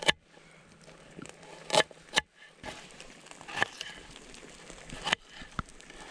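Scattered sharp knocks and clicks at irregular spacing, about one a second, over a faint steady hiss: the handling noises of cooking at a camp fire.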